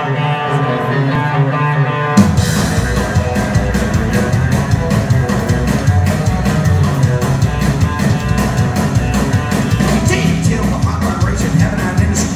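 Live rockabilly band: electric guitar holds sustained notes, then about two seconds in the drums and upright bass come in together with a steady driving beat.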